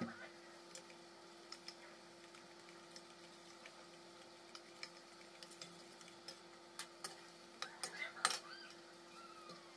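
Bottle-gourd and gram-flour pakoras frying in hot oil in an iron kadhai, a faint steady sizzle under a low hum, with a metal spoon clinking and scraping against the wok now and then as they are turned. The clinks come thicker about three-quarters of the way in, the loudest one near the end.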